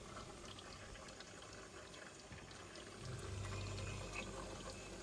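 Refrigerant R134a hissing and gurgling faintly through a freezer's newly recharged cooling circuit, with small ticks; a low hum comes up about three seconds in and fades again. The hissing or boiling of the gas is the sign that the new compressor is working and the system is charged.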